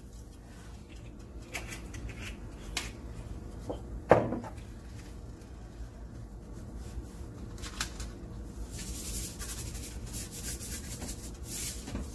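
Kitchen handling sounds: small clicks and knocks as the olive oil bottle and sea salt canister are picked up and set down, with one sharp knock about four seconds in. Near the end come short hissing bursts as sea salt is dispensed from its canister.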